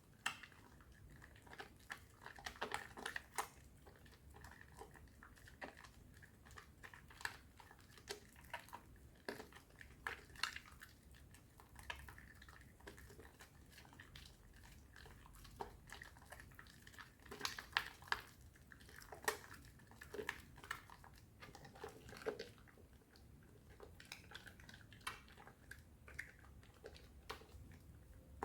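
A bar of soap being worked by hand in lather: soft, irregular wet crackles, squishes and small taps.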